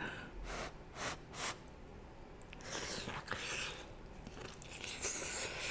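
Close-miked eating sounds: a person chewing and biting food, with scattered soft wet clicks and crunches.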